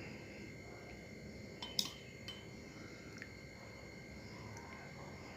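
Faint clinks and scrapes of a metal spoon against a glass bowl and a clay cup as thick rabri is ladled across. The sharpest clink comes a little under two seconds in, with a couple of lighter ticks after it.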